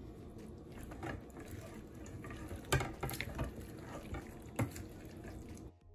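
Wet chickpea, potato and tomato mixture being stirred and folded with a spoon in a large aluminium pot, a squelching churn with several sharp knocks and scrapes of the spoon against the pot. Soft background music comes in near the end.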